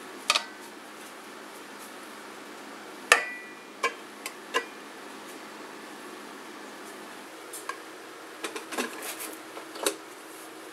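A metal steaming rack and a ceramic bowl clinking against a rice cooker's non-stick inner pot: a few sharp clinks with brief metallic ringing, the loudest about three seconds in. A cluster of lighter knocks and rattles follows near the end.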